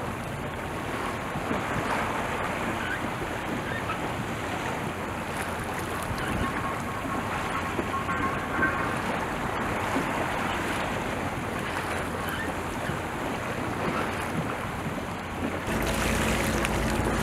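Wind buffeting the microphone over choppy open sea water, a steady noisy wash. About a second before the end it gives way to a small outboard motor humming steadily at idle.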